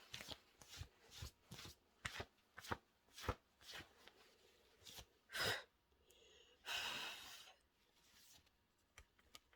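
Faint, scattered rustling and small crackles of torn tissue paper being handled, with a louder crackle about five seconds in. A short breathy hiss from the nose or mouth comes about seven seconds in.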